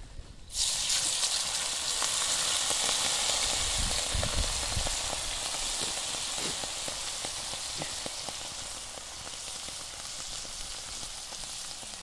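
Milky liquid poured into a hot pan of toasted bread slices over embers, hissing and sizzling loudly as it boils off in steam. The hiss starts suddenly about half a second in, with scattered crackles, then slowly dies down.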